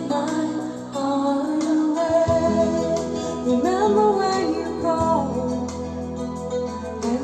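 A slow song played back through Dali Zensor 3 bookshelf speakers driven by an Aiyima D03 amplifier: a melody line glides over sustained chords with no words sung.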